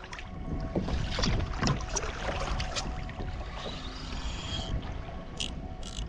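Water sloshing and lapping against a fishing kayak's hull as it moves, with irregular small knocks and clicks.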